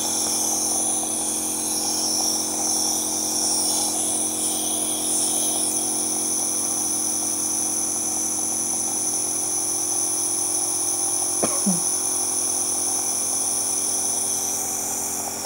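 Electric compressor nebuliser running steadily, a constant motor hum with a hiss on top as it turns saline into a fine mist.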